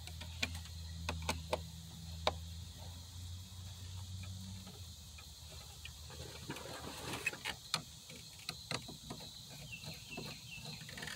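Scattered sharp metallic clicks and taps from a hand wrench worked on the alternator's upper mounting bolt, more of them in the second half. Behind them is the steady high chirring of insects, and a low steady hum that stops a little under halfway through.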